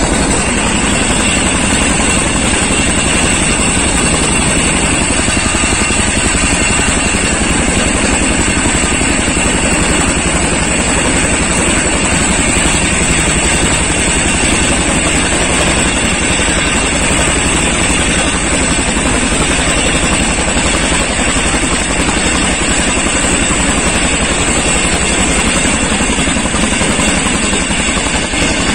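Boeing CH-47 Chinook tandem-rotor helicopter running close by: a loud, steady rush of rotor and turbine noise with a fine, rapid beat from the blades.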